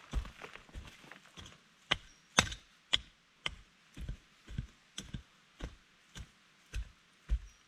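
Wood being chopped by hand, a steady run of sharp strikes about two a second, quicker and lighter at first.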